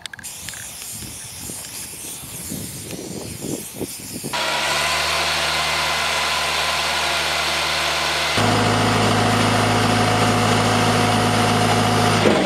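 Short irregular hissing bursts of a spray paint can marking the ground. Then, from about four seconds in, the engine of a truck-mounted auger drill rig running steadily, which becomes louder with a strong low hum about eight seconds in.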